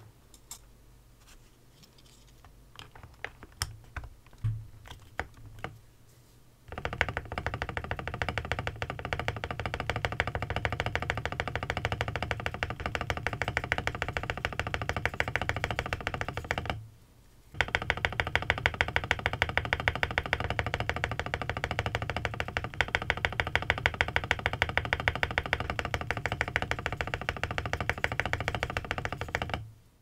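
A few scattered clicks as the spacebar keycap is fitted, then a mechanical keyboard's spacebar pressed rapidly over and over, clacking on its lubed Gateron Ink Black linear switch and lubed stabilizers, with a short pause a little past the middle.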